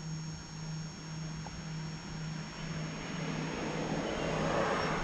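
Rear electric parking brake caliper motors of a Honda Civic Type R running as the scan tool returns the brake from pad-maintenance mode to normal mode: a steady electric whine over a pulsing hum, the whine falling away at the end. A broader rushing noise swells in the second half.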